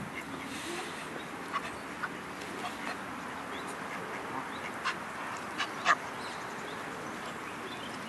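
A flock of geese and ducks feeding on grass, giving a few short scattered calls over steady background noise; the loudest call comes about six seconds in.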